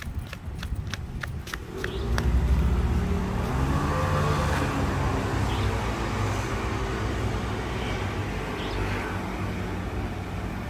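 Quick footsteps, about three or four a second, for the first two seconds. A car engine then passes close by and stays as a steady low rumble of road traffic, swelling about four seconds in.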